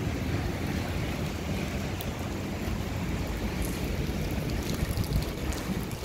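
Wind buffeting a handheld phone's microphone while walking: a steady low rumble over a haze of outdoor ambience, with a few faint clicks.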